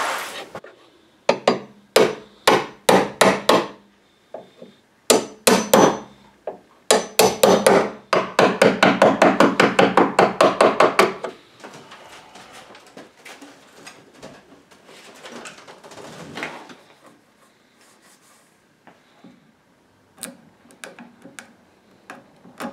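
Hammer blows on a chisel against wood, chipping dried epoxy off a glued joint: a few separate strikes, then a steady run of quick taps, about five a second, for some four seconds. Quieter handling sounds and a few light taps follow.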